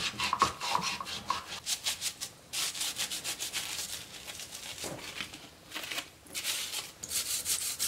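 Green scouring pad scrubbing aluminum dirt-bike parts in a tub of soapy cleaner and water: quick back-and-forth rubbing strokes, several a second, in runs with brief pauses.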